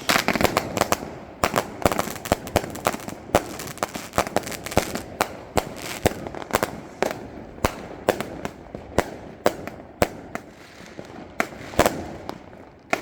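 Firecrackers going off in a rapid, irregular series of sharp bangs, several a second, over a steady crackle.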